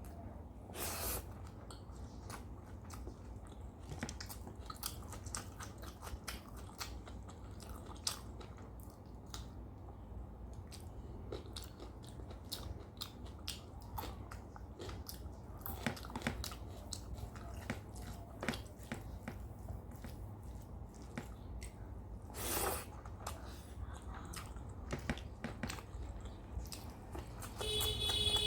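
A person chewing food close to the microphone, with many small wet mouth clicks and smacks and a few louder crunches.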